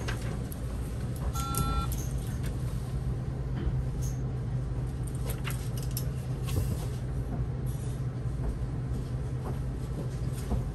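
Solaris Urbino 18 IV articulated city bus engine running steadily, heard from the driver's cab. A short electronic beep sounds about a second and a half in, and a few light clicks are heard.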